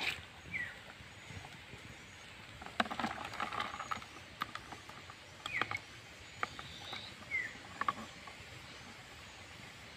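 A hand moving through shallow water in a small plastic tub of crabs, snails and frogs: light splashing with sharp clicks and taps against the plastic, busiest from about three to eight seconds in. A few short high chirps that fall in pitch are heard now and then.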